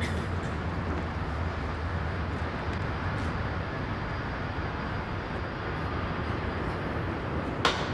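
Steady low vehicle hum over background noise, with one sharp click near the end.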